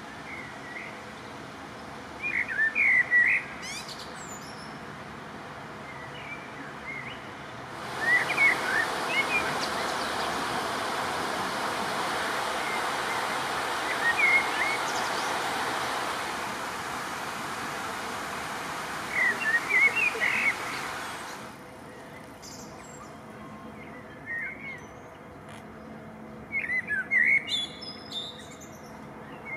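Small songbirds chirping and twittering in short phrases every few seconds. From about a quarter of the way in until about two-thirds through, a steady hiss runs under the birdsong, starting and stopping abruptly.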